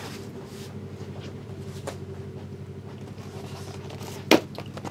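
Steady low electrical hum with a few faint handling noises, and one sharp knock about four seconds in, as card boxes and packs are handled.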